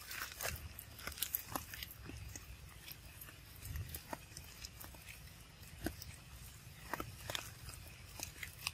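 Irregular wet clicks and mouth smacks from macaques close to the microphone as a newborn macaque nurses at its mother's nipple.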